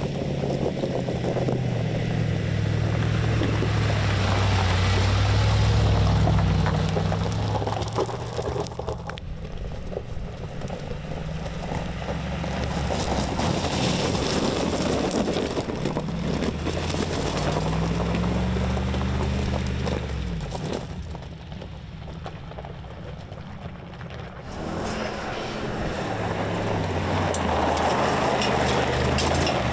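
Mercedes-AMG G63's 4.0-litre biturbo V8 revving and pulling hard off-road, with tyres working over loose gravel and dirt. The engine note rises and falls several times, drops away for a few seconds about two-thirds of the way through, then builds again near the end.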